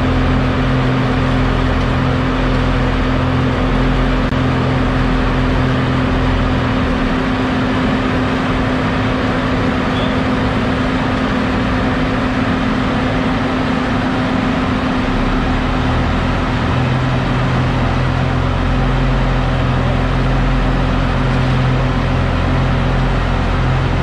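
Asphalt paver's diesel engine running steadily close by, a constant hum over a low rumble. The rumble eases for about ten seconds midway, then comes back.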